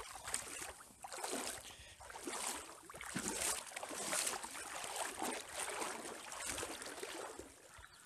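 Small waves lapping and washing on a sandy river beach, in uneven swells.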